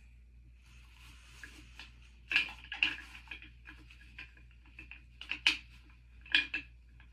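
Hands rummaging in a trash bin: soft rustling, then a series of sharp clatters as small wax-melt tester containers knock together, loudest about two and a half, five and a half and six and a half seconds in.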